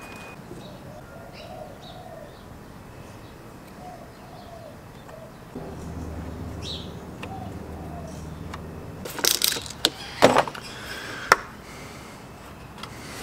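Birds chirping and cooing faintly in the background. A low hum comes in about five and a half seconds in and fades near nine seconds. A few sharp knocks and clatters follow between about nine and eleven seconds in, the loudest sounds here.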